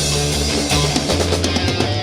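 Heavy rock music led by electric guitar. A low bass note drops to a lower note about halfway through.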